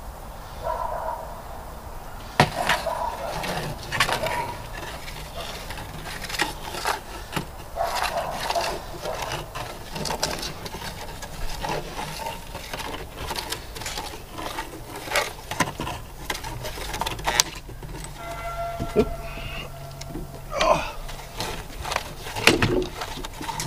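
Handheld metal detector swept over a cedar cant to check it for hidden metal before milling, with scattered knocks and scrapes of boots and wood. About eighteen seconds in, a steady electronic tone of several pitches sounds for about three seconds.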